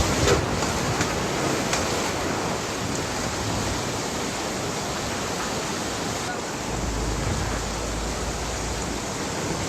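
Floodwater rushing, a dense, steady roar of water with a low rumble joining about seven seconds in.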